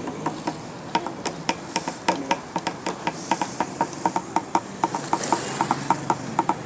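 Quick, uneven tapping with a short ring to each stroke, several taps a second, from a street performer beating out a rhythm for his string-worked dancing dolls, over steady traffic noise.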